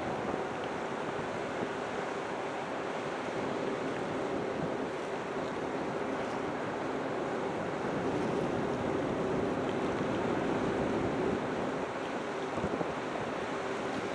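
Steady wind on the microphone and sea noise aboard a ship, with a faint steady hum underneath.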